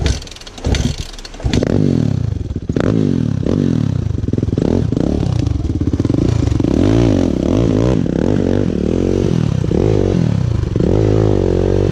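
Dirt bike engine working on a trail, its pitch rising and falling again and again with the throttle. A few sharp clattering knocks come in the first second and a half before the engine takes over.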